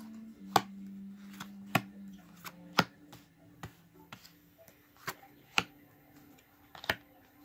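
Tarot cards being laid down one by one on a table: about seven sharp snaps at uneven intervals. A faint low hum runs underneath and is stronger in the first two seconds.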